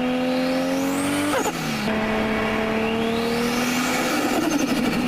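Tuned turbocharged car engine pulling hard, with a rising turbo whistle. About a second and a half in, the throttle lifts and the turbo flutters briefly, then the engine pulls again and the whistle rises and falls once more.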